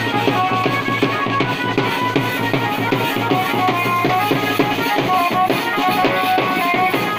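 Wedding band music (band baja with dhol): fast, steady drumming under a melody of short held notes.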